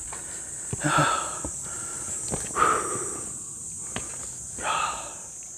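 Heavy breathing of a hiker climbing a steep trail, three loud breaths about two seconds apart, with a few light footstep taps on rock, over a steady high-pitched insect buzz.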